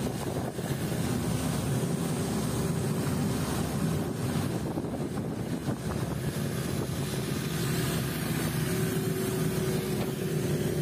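Longtail boat's engine running steadily at a constant pitch while the boat is under way, with the rush of water and wind.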